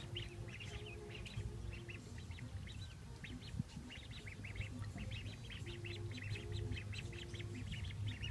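A group of ducklings peeping, many short high peeps overlapping without a break, over a low steady hum.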